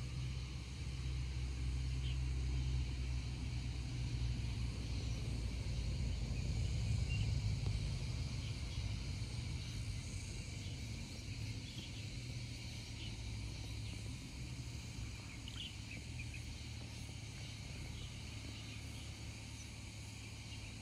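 Outdoor ambience: insects chirping steadily, with a few short chirps here and there, over a low rumble that eases off in the second half.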